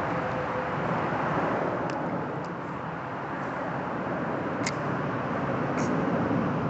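Creek water running, a steady even rush, with a few faint ticks scattered through it.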